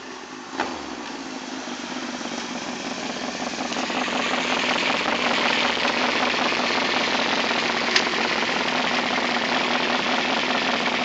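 2008 Kawasaki ZX-10R's 998 cc inline-four running through an M4 aftermarket exhaust at a steady pitch, growing louder over the first four seconds and then holding. A sharp click comes about half a second in, and a short tick near the end.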